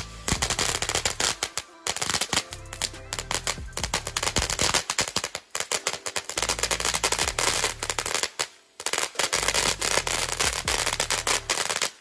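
Short Stack fountain firework crackling, a dense rapid popping that lets up briefly twice, over background music.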